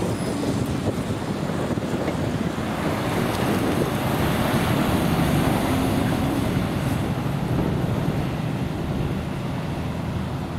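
Scania hooklift fire truck with a water tank driving past close by: diesel engine and tyre noise swelling to a peak about halfway through, then fading as it pulls away. Wind buffets the microphone throughout.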